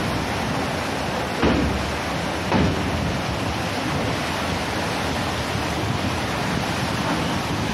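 Steady rush of wind over the microphone from a moving train, with rough sea surging below; two brief louder gusts about a second and a half in and again a second later.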